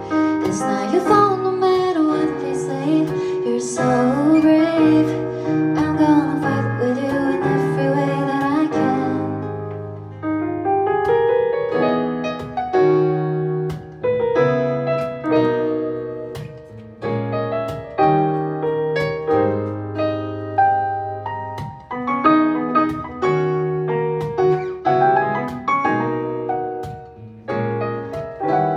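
Pop ballad sung to piano accompaniment. For about the first nine seconds the singer holds drawn-out, wavering notes over the piano. The piano then plays on alone, striking chords over sustained low bass notes.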